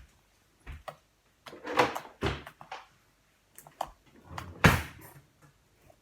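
Homemade slime being squeezed, stretched and poked by hand: irregular squelches and pops, the loudest just under five seconds in.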